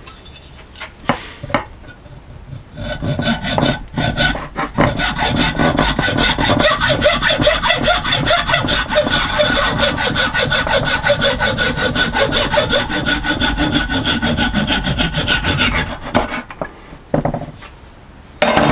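Hacksaw cutting through the protruding end of a wooden hammer handle and its glued-in wooden wedge, with steady back-and-forth strokes for about thirteen seconds. A few knocks come first as the saw is set in place, and the sawing stops shortly before the end, as the offcut comes free.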